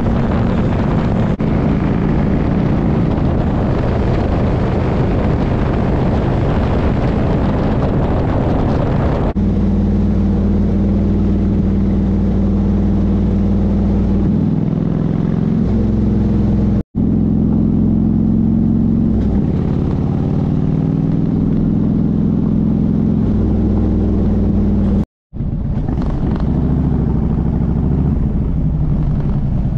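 Harley-Davidson motorcycle's V-twin engine running under way, at first at highway speed and mostly buried under wind rush on the microphone. About a third of the way in it changes to slower riding, where the engine note is plain and rises and falls with throttle and gear changes; the sound cuts out briefly twice.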